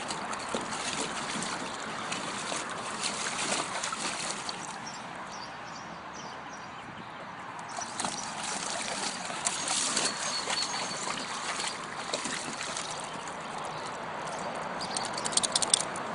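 Pool water splashing and sloshing as dogs swim and paddle about, coming and going in waves. A quick run of sharp taps near the end.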